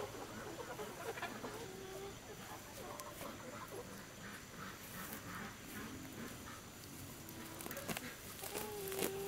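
Chickens in a pen clucking, with short scattered calls and one longer call near the end. Faint rustles and ticks of leafy plants being picked by hand sound close by.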